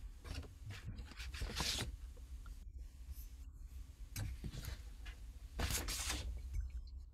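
A few short bursts of soft noise over a steady low hum, picked up by an open computer microphone.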